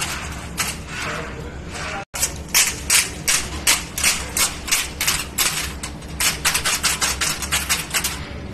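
Quick sharp clacks, about three a second, running on after a brief dropout about two seconds in.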